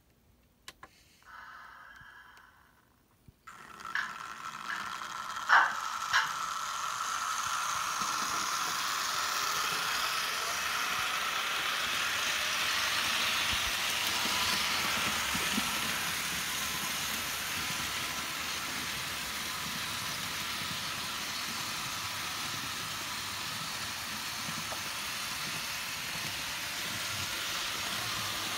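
Märklin V188 HO-scale model diesel locomotive pulling a long train of wagons over sectional track. It starts up abruptly about three and a half seconds in, with a few sharp clicks at first, then gives a steady running rattle with a thin motor whine.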